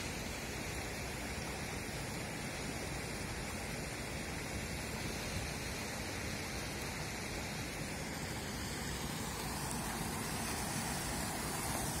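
Steady rush of flowing water: a shallow mountain river running over stones, with a small waterfall across it.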